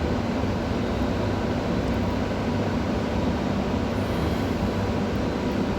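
Steady low hum with a constant hiss.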